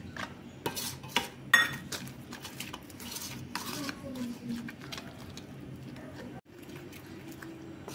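Metal spoon clinking and scraping against a steel mixing bowl while stirring gram flour into batter, with a few sharp clinks in the first two seconds.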